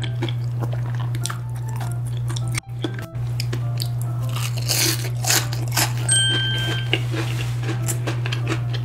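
Close-up crunching and chewing of a crispy deep-fried battered snack, with many sharp crackles as the crust breaks, most of them around the middle.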